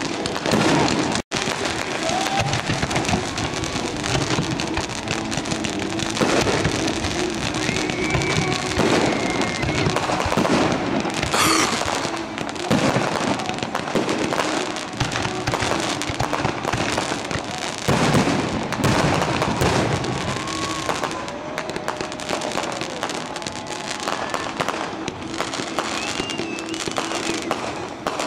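Aerial fireworks display: shell bursts and crackling going off in quick succession without a break.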